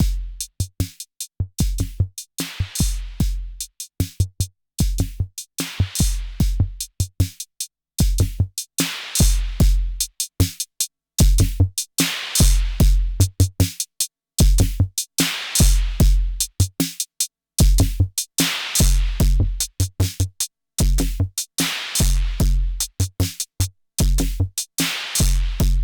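Arturia DrumBrute Impact analog drum machine playing a repeating drum pattern through its output distortion, which crushes and compresses the hits into a tight, dense sound. The high end grows brighter from about a third of the way in.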